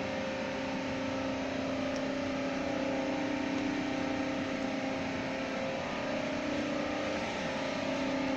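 Steady hum of running power-plant machinery, a constant drone with several fixed tones over a noisy rush.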